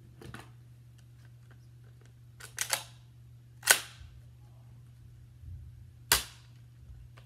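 Nerf blaster being handled and fired: a quick cluster of plastic clicks about two and a half seconds in, then a sharp snap a second later, the loudest, and another sharp snap near the end.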